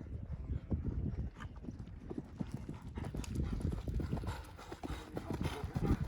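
Hoofbeats of a ridden horse on an arena surface: a continuous run of dull thuds.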